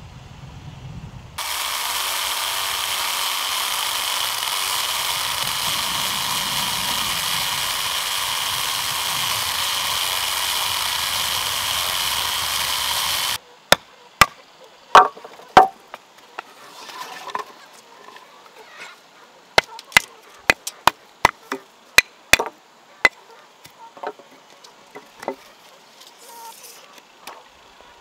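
A loud, steady rushing noise that cuts off suddenly about halfway through, followed by sharp, irregular knocks and cracks of a steel wood chisel being worked into the end of a wooden post, splitting the wood.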